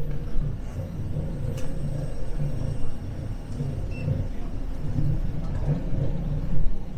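Low, uneven rumble of a running vehicle, with a few faint clicks.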